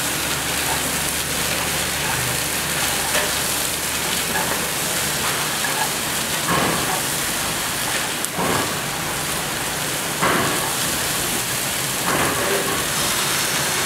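Rice vermicelli stir-frying in a non-stick pan over a gas burner: a steady sizzle, with a few scrapes and knocks of the spatula against the pan.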